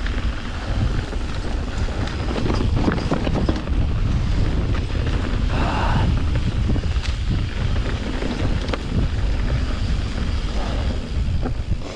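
Wind buffeting the microphone of a rider moving along a dirt trail, a steady rumble with scattered clicks and rattles from the bike on rough ground.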